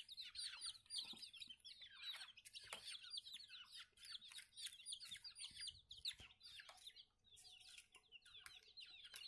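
A box of six-day-old egg-laying hybrid chicks peeping: many short, high, falling chirps overlapping without pause, faint.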